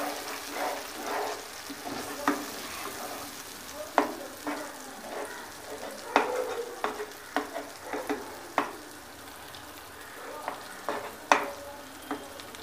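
Eggs and masala sizzling in hot oil in a nonstick wok while a wooden spoon stirs and scrapes through them, with irregular sharp knocks of the spoon against the pan.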